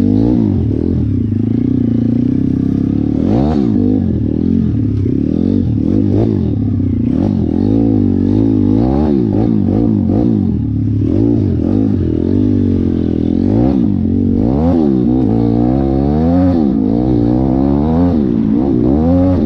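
Dirt bike with a 150cc YX four-stroke engine being ridden. The engine revs rise and fall over and over, every second or so, as the throttle is opened and closed.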